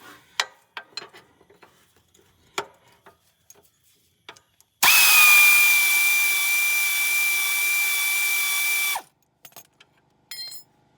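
Pneumatic air tool running for about four seconds, a steady high whine over hiss that cuts off sharply, working loose a bolt on a mower's belt-tensioner assembly. Before it, scattered clinks and knocks of tools on metal.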